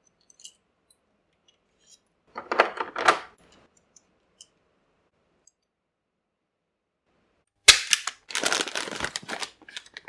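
Hard clicks and rattling from handling a hand crimping tool and changing its interchangeable crimping dies: a short burst of rattling about two and a half seconds in, then a sharp snap near eight seconds followed by a longer burst of clatter.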